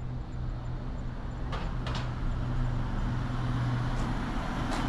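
A steady low motor hum with a few light clicks.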